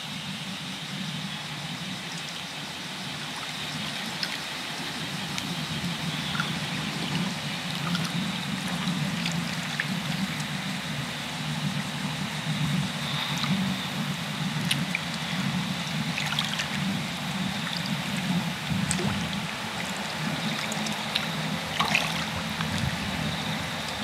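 Shallow tidal-flat water gently lapping and trickling among reeds, a steady wash of sound with scattered small ticks and clicks and a low steady rumble underneath.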